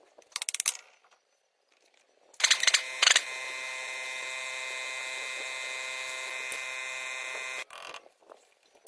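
A small motor starts with a short clatter and then runs at one steady speed, giving an even hum for about four and a half seconds before it stops abruptly.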